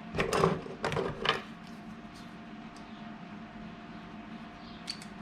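Three quick clattering knocks of small metal parts being handled within the first second and a half, then a steady low hum with a couple of faint ticks near the end.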